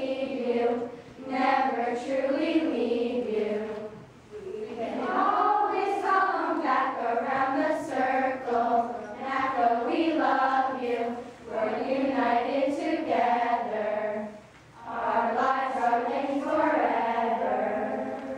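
A large group of girls singing a song together, in phrases with brief breaks for breath about four, eleven and fifteen seconds in.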